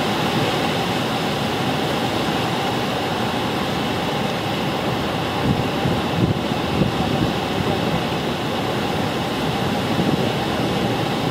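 Steady rushing of the Moconá Falls and the churning river water below them, with gusts of wind buffeting the microphone around the middle and near the end.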